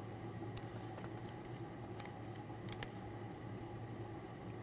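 Faint steady low hum with a few soft ticks and rustles as gloved hands handle a small plastic bag holding a new valve part.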